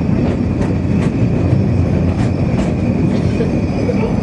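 Great Orme Tramway cable-hauled tram car running along its track, a steady rumble of wheels on rails with irregular light clicks.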